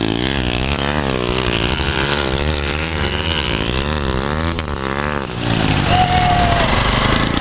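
A vehicle engine running on an off-road trail, its pitch rising and falling in quick repeated swells for about five seconds, then steadier. A brief held high tone about six seconds in.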